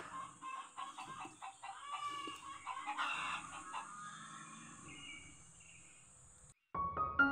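Chickens clucking, loudest in the first few seconds and fading away, then music starting just before the end.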